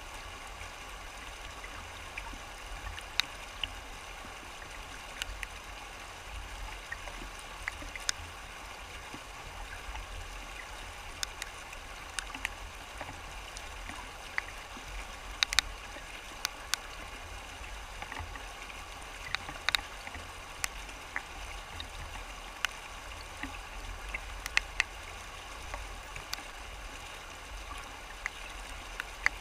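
Shallow river rapids rushing over rocks: a steady hiss of running water with a low rumble underneath and frequent, irregular sharp splashes close by.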